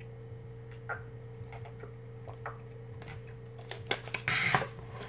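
Drinking from a plastic water bottle: a few small wet clicks of sipping and swallowing over a steady low hum, then a short, louder rustling burst a little before the end.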